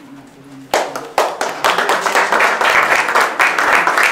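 Audience clapping in applause, starting a little under a second in and building quickly to steady, dense clapping.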